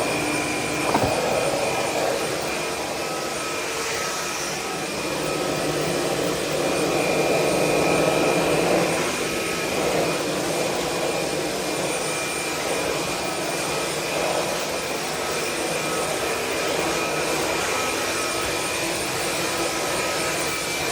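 Dreo cordless stick vacuum running steadily: a constant high motor whine over a rush of air that swells and fades as the floor head is worked across the floor.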